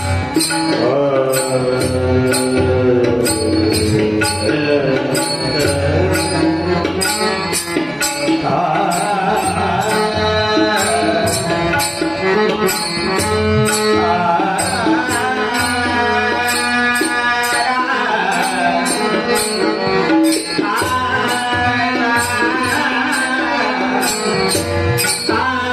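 Marathi devotional bhajan: a man sings a melodic line over drum accompaniment and a steady, even percussion rhythm.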